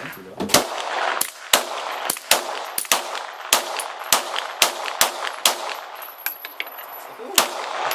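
Glock 17 9mm pistol firing a string of about a dozen shots at an uneven pace of roughly two a second, with fainter reports among them, then a pause of about two seconds before one last shot near the end.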